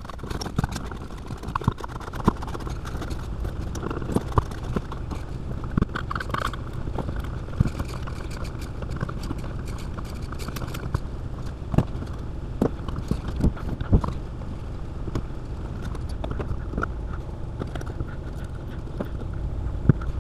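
Irregular clicks, taps and light scrapes of a screwdriver and a plastic wall outlet being handled and screwed into its wall box, over a steady low background hum.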